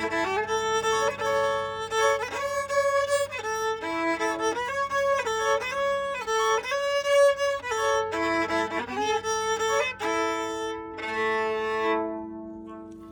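Fiddle playing a melody with frequent double stops, the notes changing about twice a second. It closes on a held two-note chord that fades out near the end.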